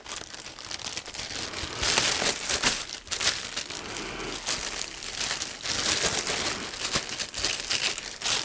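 Plastic packaging film crinkling and rustling in irregular bursts as it is handled and pulled open, loudest about two seconds in.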